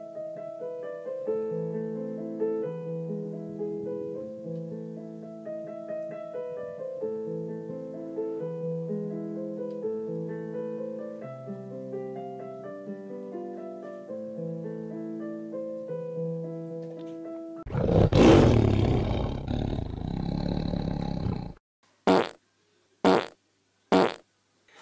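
Piano being played, a melodic piece with a steady bass. About eighteen seconds in the piano stops for a loud, harsh, rasping noise lasting about four seconds, then four short loud bursts.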